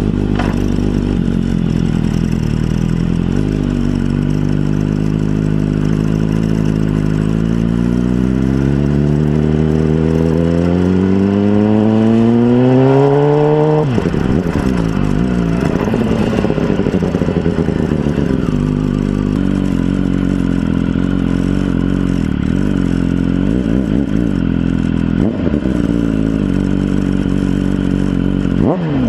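BMW S1000RR inline-four sportbike engine and exhaust, heard onboard, accelerating with its pitch climbing steadily for about fourteen seconds and then dropping sharply. After that the revs rise and fall, settling steadier near the end.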